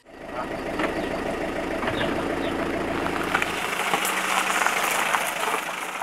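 Pickup truck engine running, a steady low throb under dense rattling noise with scattered clicks; the deepest part of the rumble drops away a little past halfway.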